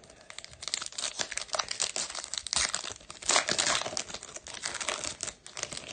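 Shiny wrapper of a Topps Chrome trading card pack crinkling and tearing as it is torn open by hand, crackling throughout and loudest a little past halfway.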